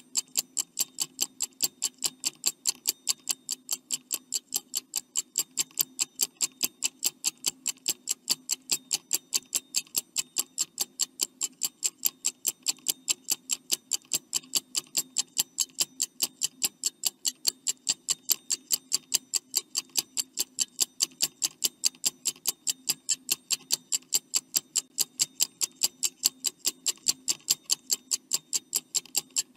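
Stopwatch ticking sound effect, a steady run of sharp ticks at about four a second, timing the answer countdown.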